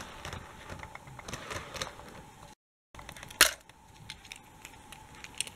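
Light plastic clicks and taps of Lego train parts being handled, with one sharp click about three and a half seconds in and a brief dropout to silence just before it.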